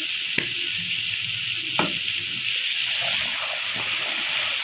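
Onion-tomato masala, wet with a splash of water, sizzling steadily as it fries in a pot. A wooden spoon stirs and scrapes through it, with two short sharp knocks in the first two seconds.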